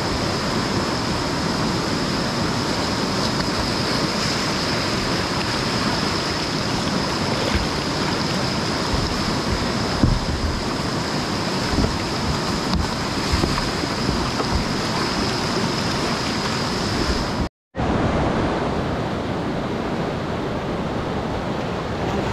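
Whitewater rapids rushing steadily, broken by a momentary silent gap a little over 17 seconds in.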